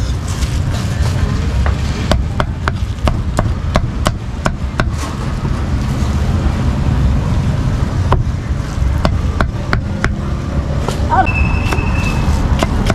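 A steel meat cleaver chopping pieces of braised pork on a thick round wooden chopping block: runs of sharp knocks, about three a second, with short pauses. A steady low rumble runs underneath.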